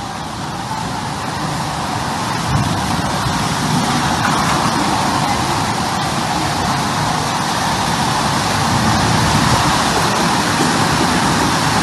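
Storm wind and driving rain roaring on the microphone, a dense, even rush that builds over the first few seconds and then holds loud and steady.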